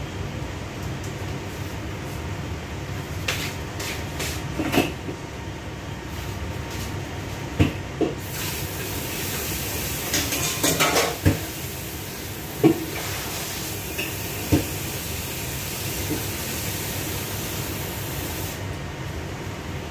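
Tap running into a kitchen sink for about ten seconds, starting about eight seconds in and stopping shortly before the end, while dishes and utensils clink and knock several times. A steady low hum sits under it all.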